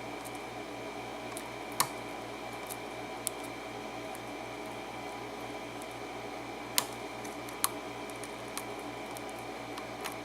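Scattered sharp little clicks of a lock pick and tension wrench working the pins inside an Abus 83/45 brass padlock, a few ticks spread over several seconds with the clearest about 2 and 7 seconds in, over a steady low hum.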